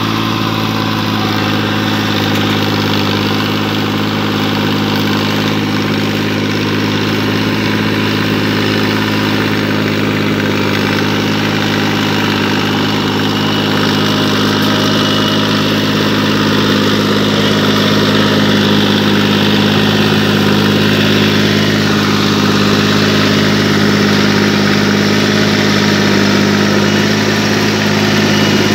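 New Holland 3630 tractor's three-cylinder diesel engine running steadily under load, driving a Jagatjit Super Seeder Combo whose rotary blades churn through dry crop stubble. It gets a little louder about halfway through.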